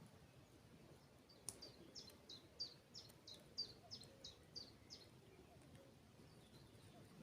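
A small songbird singing faintly: a run of about a dozen quick high notes, each falling in pitch, at about three a second, lasting about four seconds.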